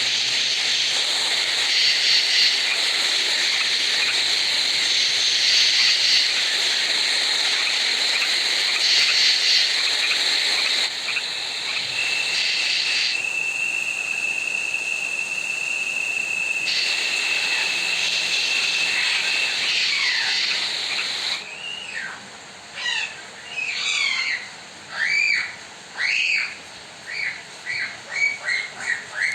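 Ambient sound recordings played back in succession: a loud, steady hiss, with a steady high whistle-like tone running through it for several seconds around the middle, then short chirping birdsong calls in the last several seconds.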